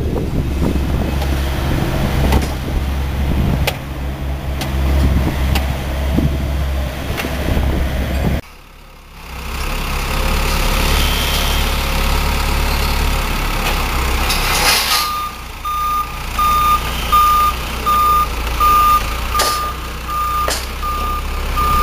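Heavy construction machinery's diesel engine running steadily with a low rumble. About two-thirds of the way through, a back-up alarm starts beeping at a steady pace, a little more than once a second.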